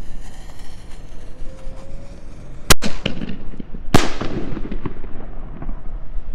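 6-inch aerial firework shell going off: two sharp booms about a second apart, each trailing off in a rumbling tail.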